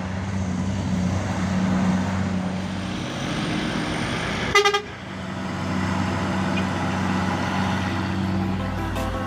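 Heavy truck engine running with a steady low drone, and a short horn blast a little before halfway.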